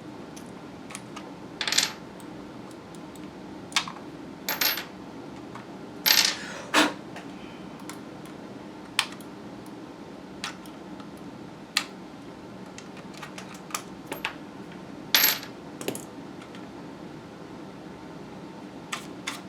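Small hard mouse parts and metal pieces being handled and set down on a work surface: irregular light clicks and clinks, about a dozen, the loudest clustered about six seconds in and again about fifteen seconds in.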